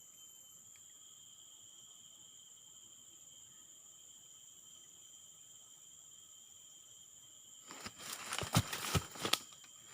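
Steady high-pitched chorus of insects such as crickets or cicadas, several steady tones at once. Near the end it is broken by a second and a half of loud rustling and knocking handling noise.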